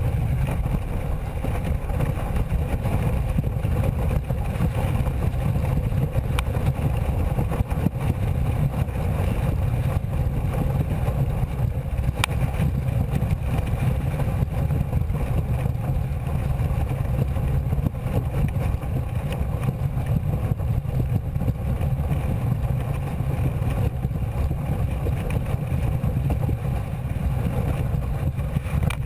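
Wind buffeting an action camera's microphone: a loud, steady low rumble that sets in suddenly and holds throughout.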